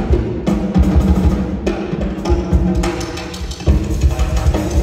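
Solo drum kit played live: a dense, uneven run of bass drum and tom hits with sharper stick strokes, over a steady low pitched drone.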